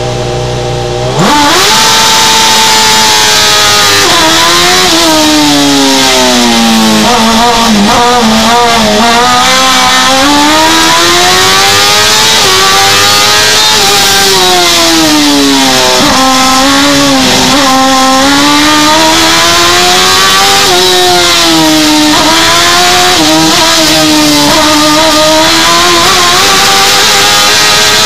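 Race car engine heard from inside the cabin during a hillclimb run. It runs low at first, then launches hard about a second in, and the revs rise and drop repeatedly through gear changes and braking as it climbs at full throttle.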